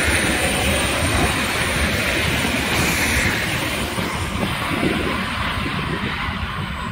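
Heritage excursion train running by: a steady rumble and rail noise that thins out a little in the second half.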